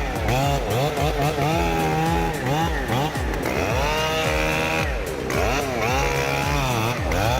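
Chainsaw engine revving up and down over and over, its pitch rising and falling about twice a second with short steady stretches between.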